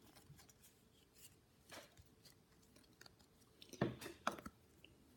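Faint rustling and a few soft flicks of Pokémon trading cards being handled, with the clearest strokes about two seconds in and just before four seconds.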